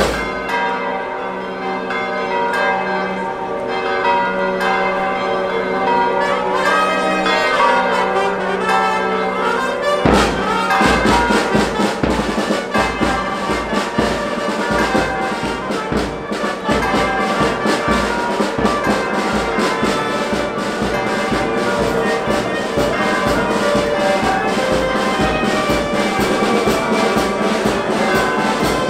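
Music with brass instruments and bell-like tones: slow held chords at first, then a steady beat comes in about ten seconds in.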